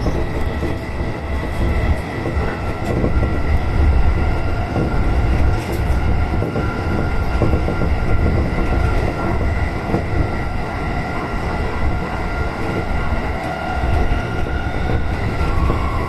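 Negishi Line electric commuter train running at speed between stations, heard from the front car: a steady rumble of wheels on rail with a thin steady whine above it.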